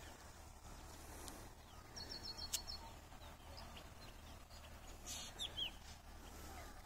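Faint bird chirps over low background noise: a quick run of high chirps about two seconds in, and a few short falling chirps about five seconds in.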